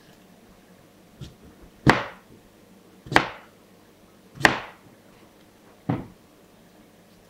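Kitchen knife chopping through peeled yam onto a plastic cutting board: four sharp chops about one every second and a half, the last one softer, with a lighter tap just before the first.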